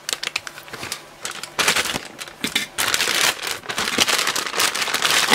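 Plastic packaging bags crinkling and rustling on and off as they are handled and pulled out of a cardboard box.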